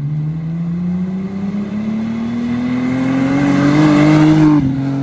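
Naturally aspirated Toyota Supra Mk4's 2JZ-GE straight-six with an aftermarket exhaust, accelerating toward and past the listener. Its engine note rises steadily in pitch and loudness, peaks about four seconds in, then drops in pitch as the car goes by.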